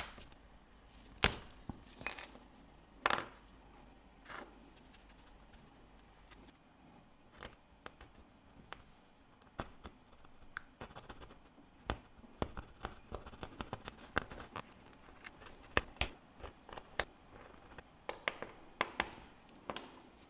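Irregular sharp clicks and taps of small metal tools handling a diver's watch bezel at the bench, the loudest two in the first few seconds.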